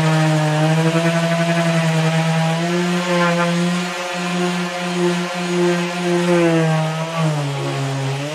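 Electric orbital sander running on a wooden table top: a steady motor hum with a sanding hiss, its pitch wavering as it is worked across the boards and dipping lower near the end.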